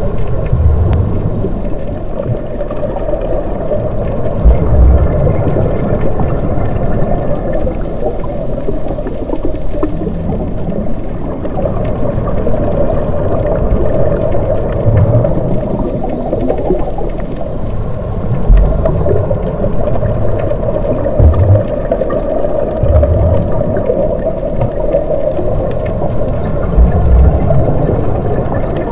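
Underwater ambience of scuba diving: muffled rumbling and gurgling of divers' regulators and exhaled bubbles, with deep low bursts every few seconds.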